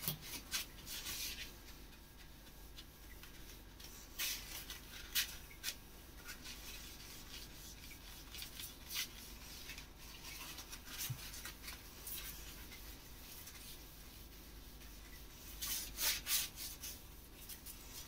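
Quiet intermittent rubbing and scrubbing strokes on kitchen wall tiles, with small clusters of louder strokes near the start, about four to five seconds in, and near the end.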